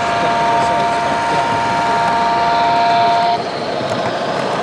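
A model locomotive's two-note whistle held steadily, cutting off sharply about three and a half seconds in, after which a fast, rhythmic running sound from the train continues.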